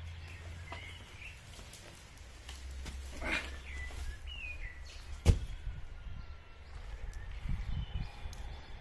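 A sawn tree trunk dropped onto a lawn, landing with one sharp thud about five seconds in, followed by a few softer knocks as it settles. Birds chirp in the background.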